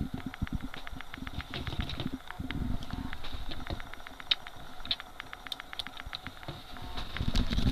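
Rapid, irregular clicks and light taps from a small plastic alarm clock being handled, with a louder knock near the end.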